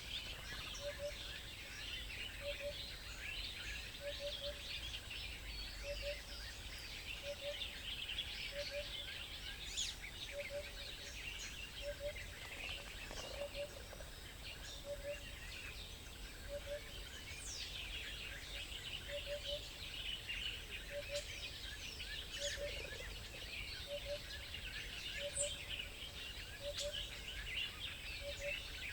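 A chorus of many small birds chirping and twittering without pause. Beneath it, a low double note repeats steadily about every second and a half.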